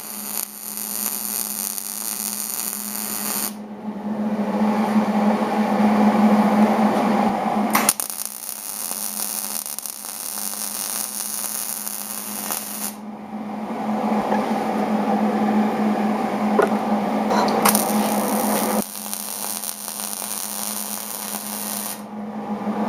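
Electric welding arc crackling in several short runs, each a few seconds long and starting and stopping abruptly, as a patch panel is welded into rust holes in a car's window channel, over a steady hum.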